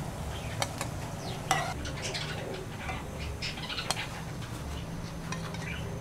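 A metal slotted spatula clinking and scraping against a steel pan and a plate as fried potato smileys are lifted out, giving several sharp clicks, the loudest about a second and a half in, over the faint sizzle of the frying oil.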